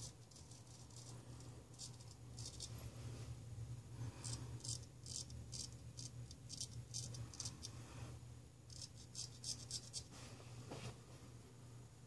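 Ralf Aust 5/8 round-point straight razor scraping through lather and stubble on the neck: groups of short, quick, scratchy strokes.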